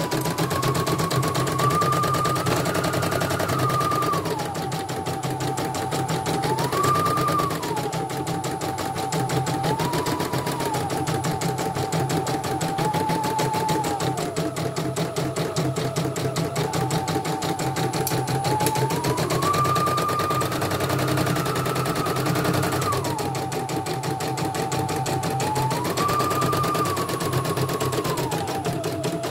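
CNY E900 embroidery machine stitching: a rapid, even clatter of needle strokes under a motor whine that steps up and down in pitch every few seconds as the machine changes speed. It is running on its newly replaced drive motor.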